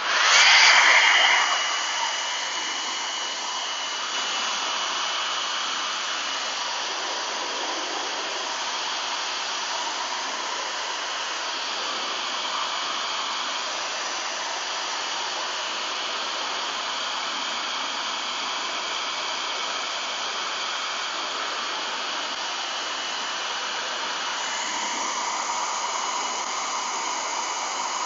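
Handheld blow dryer running on its high setting, a steady rush of air with a faint steady whine. It switches on sharply at the start, is loudest for the first second or two, then runs evenly.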